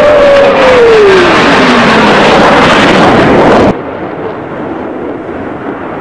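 Chengdu F-7 fighter's single turbojet passing overhead: a loud jet noise with a whine that falls in pitch as the jet goes by. About two-thirds of the way through it cuts abruptly to a quieter, duller jet rumble.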